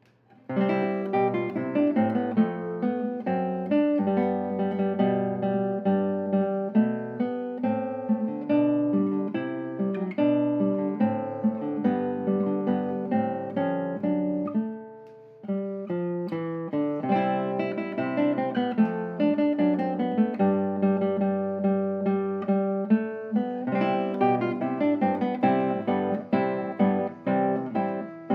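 Solo nylon-string classical guitar playing a busy passage of plucked notes and chords. The sound dies away briefly about halfway through, then the playing resumes.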